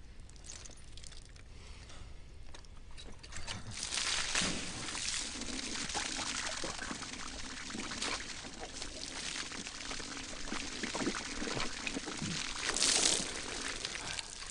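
Water pouring and splashing steadily, swelling about four seconds in and loudest near the end.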